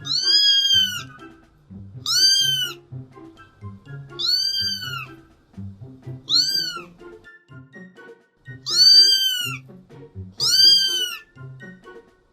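A cat meowing six times, roughly every two seconds: each meow is high-pitched and under a second long, rising then falling in pitch. Background music plays underneath.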